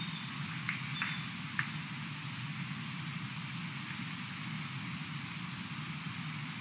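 Steady outdoor hiss from a nest webcam's microphone, with a low rumble underneath. About a second in there are a few faint, short, high chirps.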